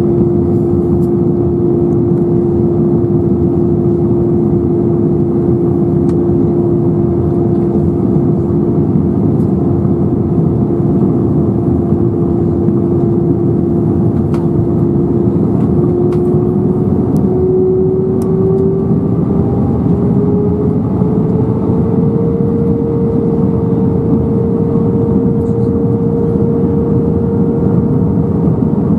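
Airliner cabin noise in an Airbus A320-214 seated over the wing: a steady roar of airflow and engine with a droning engine tone. About halfway through the tone climbs in pitch, then settles higher a few seconds later as the engines spool up.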